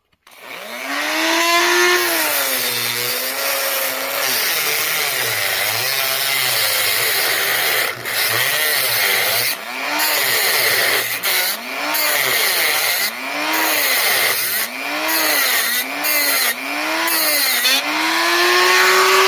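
Dremel rotary tool with a cutoff wheel grinding a slot into a copper PEX crimp ring. The motor spins up just after the start, then its pitch dips and recovers again and again as the wheel is worked against the ring, with a few brief drops in level.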